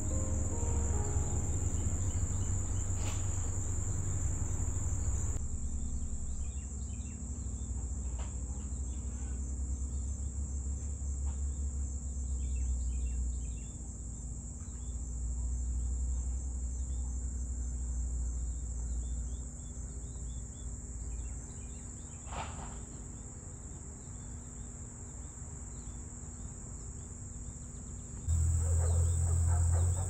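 Insects trilling steadily at a high pitch, with scattered bird chirps and a low rumble underneath.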